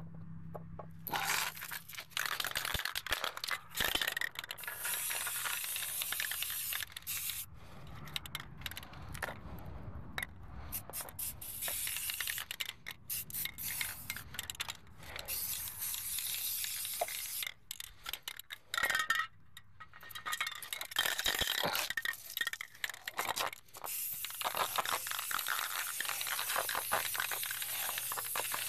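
Rough scraping and hissing work noise in runs of a few seconds, broken by short pauses, on a small part being readied to go back on the truck wheels.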